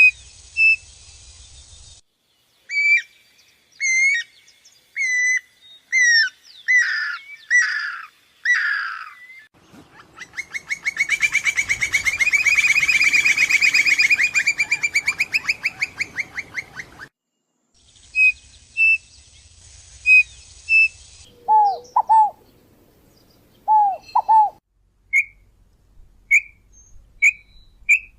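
Birds calling: a run of short whistled chirps, then a long rapid trill lasting about seven seconds in the middle, then more short whistled calls and a few lower two-note calls. The background changes abruptly several times between the stretches of calls.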